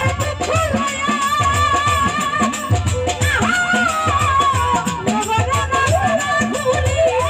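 A young woman singing a Bengali Baul folk song into a microphone, holding long wavering notes, over live folk accompaniment with a steady drum beat.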